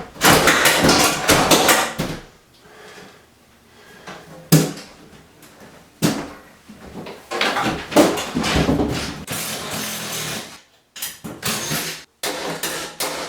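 Irregular knocks, rattles and scraping as a wall-mounted microwave is wrenched and broken off its wall mounting, in several loud bursts with short pauses between them.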